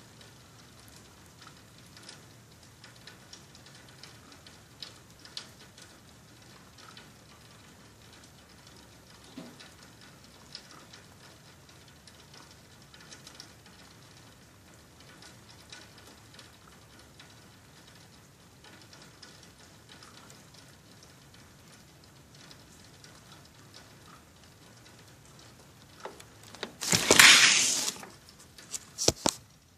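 Light rain pattering faintly, with scattered drips ticking. Near the end, a loud sudden noise lasting about a second, then a shorter one.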